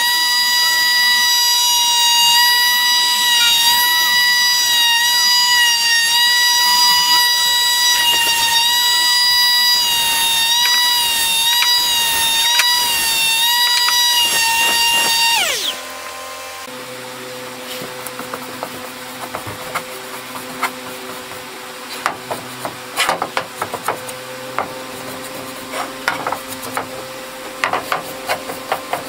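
Electric detail sander running with a steady high whine, then switched off about fifteen seconds in, its pitch falling as it stops. After that a quieter, lower steady hum continues, with scattered sharp clicks and scrapes.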